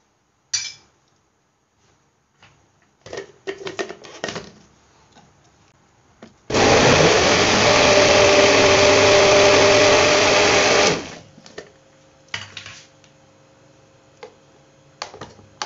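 Electric countertop blender running at full speed for about four seconds, churning frozen mango cubes with yogurt and condensed milk, then cutting off suddenly. A few short knocks come before it starts.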